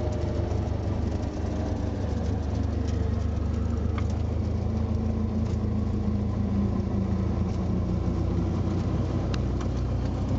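Cessna 172's piston engine and propeller running at idle during the landing rollout, a steady low drone heard from inside the cockpit.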